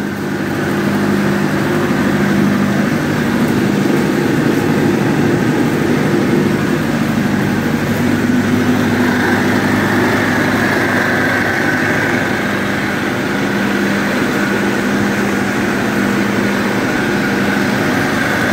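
Cummins 50 kVA diesel generator set running steadily, just started after rewiring and fitting of a new AVR. It holds a constant engine hum, and a higher steady whine joins it about halfway through.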